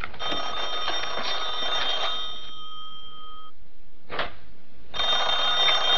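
Desk telephone bell ringing. One ring lasts a little over two seconds, and a second ring starts about five seconds in, with a short click in the pause between them.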